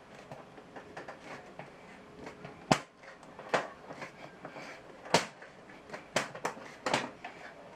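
Sharp clicks and knocks of a PC case being handled, about half a dozen in all, the loudest a little under three seconds in and again just past five seconds.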